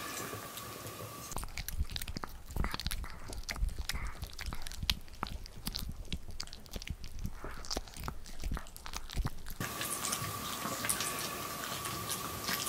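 Maltese dog gnawing a ridged dog chew stick: many irregular crunches and clicks of teeth on the chew.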